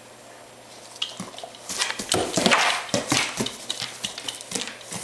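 A weimaraner snuffling, snorting and mouthing at a stink bug it is trying to eat: a quick, irregular run of short puffs and smacking noises starting about a second in.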